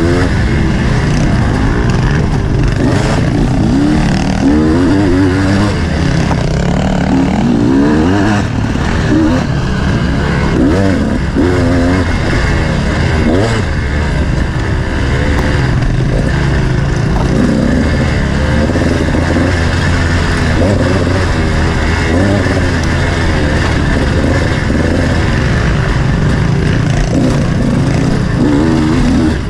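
Off-road motorcycle engine ridden hard on a cross-country course, revving up and falling back again and again as the throttle opens and closes, over a steady low rumble.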